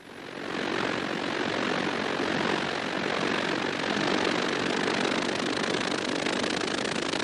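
Hovercraft running fast across water: a steady rushing noise of its engine and fans that swells in over about the first second and then holds.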